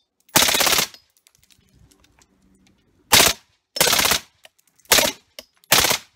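M4-type carbine fired on full automatic in five short bursts. The first, about half a second in, is the longest, and four quicker bursts follow in the second half.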